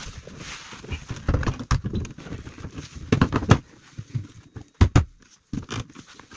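Irregular knocks, bumps and scrapes of a Baxi gas boiler's casing against its wall bracket and the wall as it is lifted and hung in place, the sharpest knocks about five seconds in.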